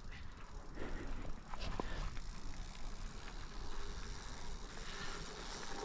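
Gravel bike riding over a chunky, loose rocky section: steady tyre noise over stones, with scattered clicks and knocks from the bike rattling.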